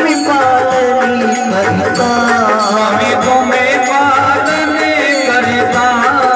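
Hindu devotional aarti music: singing over a steady held tone, with rhythmic percussion strokes.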